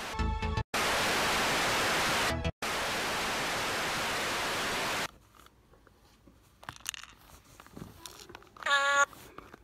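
Television static: a steady hiss of white noise that drops out for a moment about two and a half seconds in and stops after about five seconds. A short pitched tone sounds near the end.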